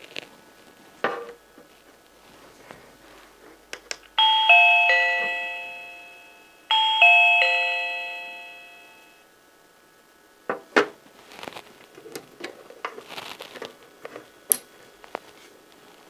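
Electronic doorbell chime from a Reolink PoE video doorbell: a descending three-note chime, played twice about two and a half seconds apart, each time ringing out and fading. Later come a few sharp clicks and taps of handling.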